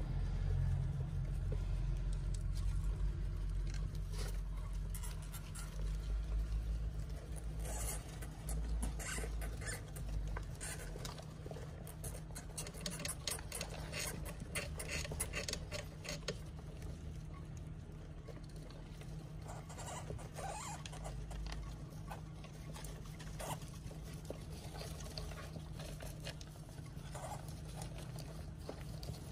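Dwarf hamsters scurrying and rustling through wood-shaving bedding and nibbling cauliflower: a run of small clicks and crackles, thickest in the middle, over a low steady hum.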